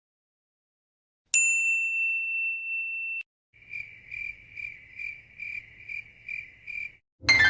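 Crickets chirping sound effect, about eight even chirps in a row, the 'awkward silence' meme sound. Before it, a single high ding that holds for about two seconds and cuts off suddenly; near the end a loud new effect begins, sliding down in pitch.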